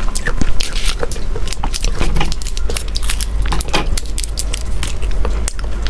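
Plastic wrapper of a hard mint candy crinkling as it is unwrapped by hand, a run of short crackles.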